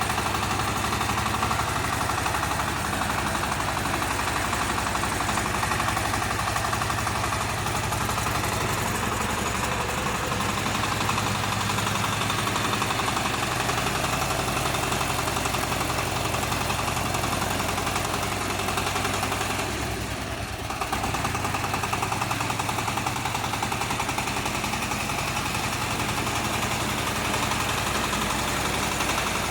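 35 hp 4WD mini wheel tractor's diesel engine running steadily, with a brief drop in level about twenty seconds in.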